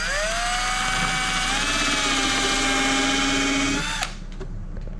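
Power drill spinning up with a rising whine, then running steadily as it bores a hole through a motorcycle saddlebag for a grommet; it stops suddenly about four seconds in.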